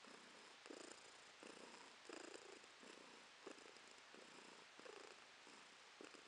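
A domestic tabby cat purring contentedly as its neck is rubbed. The faint purr swells and fades with each breath, about every two-thirds of a second.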